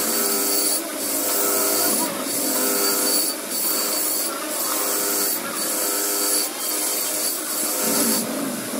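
Motor-driven wire wheel brush spinning against a hand-held motorcycle spoke rim, scouring the metal: a steady scratchy hiss over a pitched hum, easing off briefly about once a second as the rim is turned.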